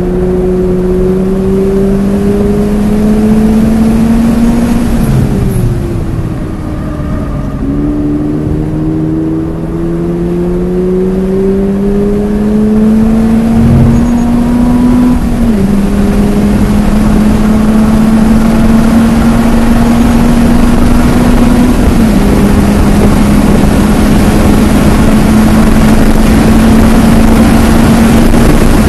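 A 2022 Subaru BRZ's 2.4-litre flat-four with an aftermarket cat-back exhaust, heard from inside the car as it pulls hard down the track. The engine note climbs steadily and dips briefly about five seconds in, then drops a step at two upshifts, about fifteen and twenty-two seconds in, as speed keeps rising.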